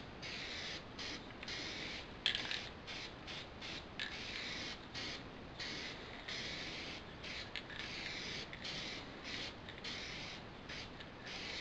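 Aerosol spray can of black paint hissing in a long run of bursts, some brief and some held for about a second, with short gaps between them.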